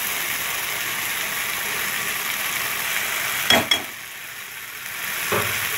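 Ginger paste and tomato sizzling in oil in a frying pan as ground spices are tipped in. A couple of sharp clinks come about three and a half seconds in. The sizzle then drops quieter for about a second and a half, until a knock brings it back up.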